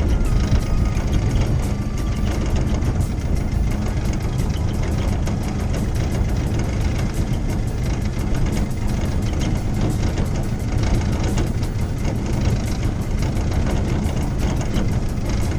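Small outboard motor running steadily at low trolling speed, pushing a wooden rowboat, with an even rapid beat.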